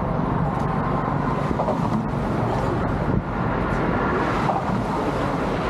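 Steady outdoor background noise, a rumble and hiss with no clear single source, with a brief drop a little after three seconds in.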